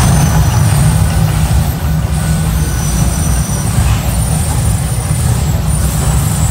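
Mirage volcano attraction erupting: a loud, steady, deep rumble with a hiss over it, from the show's eruption sound system and its gas fire jets.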